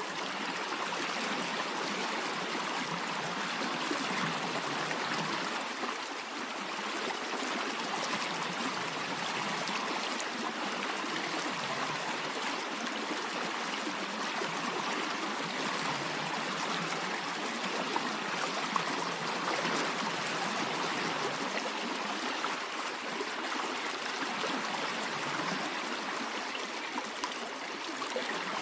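Running water of a stream, a steady, even rushing flow that does not let up.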